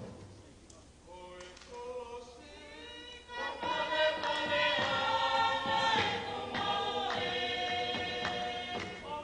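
A group of voices singing a cappella in harmony. It starts quietly with a few held notes from a single voice or two, and about three and a half seconds in the full group joins and sings long held chords.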